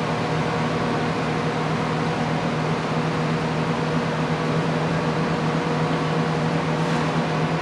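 Steady low hum under an even hiss of machinery running in the indoor pool room.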